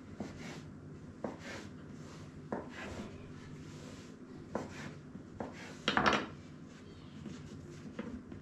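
Dough being handled and turned on a wooden board, with scattered light knocks and rubbing and a louder scraping rustle about six seconds in, over a faint steady hum.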